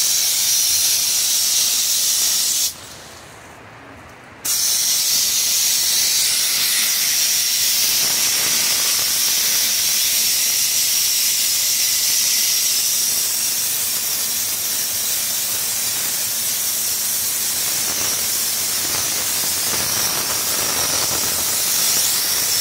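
Compressed air hissing steadily through a Raptor bed liner spray gun as the liner is sprayed. The hiss cuts out for about two seconds near three seconds in, then starts again.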